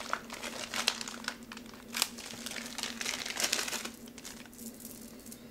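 Clear plastic packaging crinkling as a new saw chain is unwrapped by hand. The rustling is busiest at first and eases off about four seconds in.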